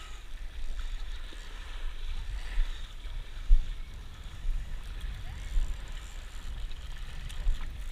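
Wind buffeting a wearable camera's microphone, an uneven low rumble, with one sharp bump about three and a half seconds in.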